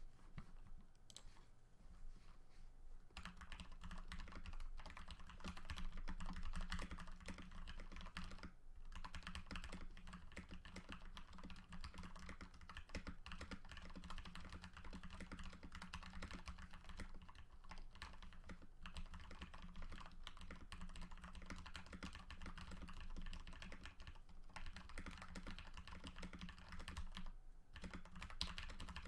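Steady typing on a Cooler Master MasterKeys PBT mechanical keyboard with lubed Cherry MX Red linear switches, a dampened case and lubed Costar stabilizers, on a desk pad over a glass desk. A few scattered keystrokes come first, then continuous typing from about three seconds in, with short pauses near nine seconds and near the end.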